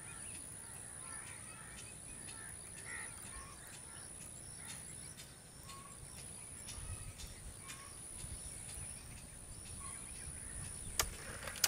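Quiet outdoor ambience with birds calling and a steady high-pitched whine, under small scattered clicks as an air rifle's adjustable rear sight is turned by hand to shift its aim to the right; one sharper click near the end.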